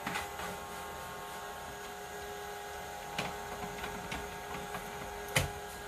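Arctic Air Ultra personal air cooler's small fan running with a steady hum, while its plastic housing and cooling cartridge are handled: a few plastic clicks, the sharpest about five and a half seconds in.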